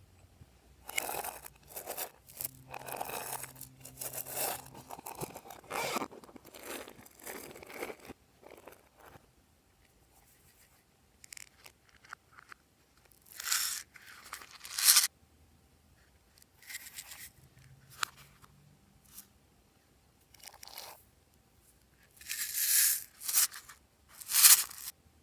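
Glossy slime being worked and mixed by hand, giving irregular crackly bursts. They come thick over the first eight seconds, then scattered, with the loudest near the end.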